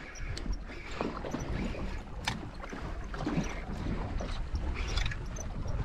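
Wind buffeting the microphone over water lapping against a small boat's hull, a steady low rumble with a few sharp clicks.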